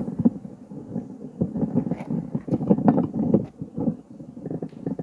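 Wind buffeting the microphone: an uneven low rumble with irregular gusts and thumps.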